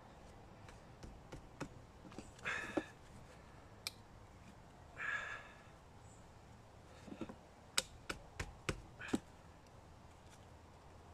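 Small bushcraft knife being worked and levered into a dry oak billet to pry off flakes: quiet, scattered clicks and knocks of steel and wood, with a run of five sharp taps about eight to nine seconds in.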